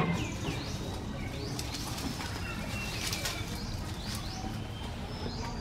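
Birds calling: a run of short, swooping chirps over a steady low rumble.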